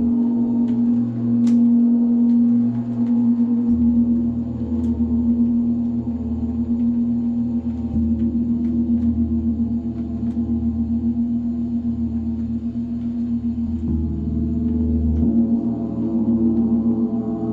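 A gong sounding as a sustained, wavering wash of deep overlapping tones, used for a sound-healing meditation. A lower hum joins about four seconds in and drops away about fifteen seconds in.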